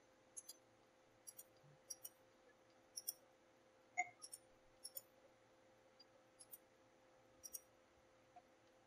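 Faint computer mouse clicks, mostly in quick pairs, about a dozen times, over a faint steady hum.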